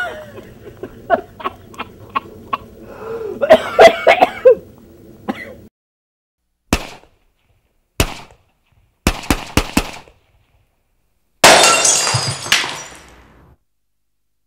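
A man's wordless vocal noises and scattered clicks over the first five seconds or so. Then come separate sharp knocks, a quick run of about four, and a loud crash that rings and fades over about two seconds.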